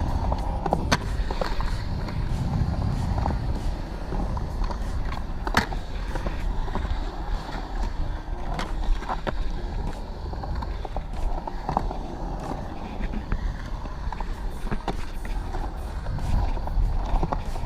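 Skateboard wheels rolling steadily over concrete, with sharp clacks and knocks from the board here and there, the loudest about one second in and near six seconds.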